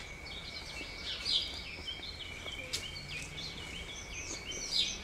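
Birds chirping and calling rapidly over a steady outdoor background, with a thin constant high tone beneath.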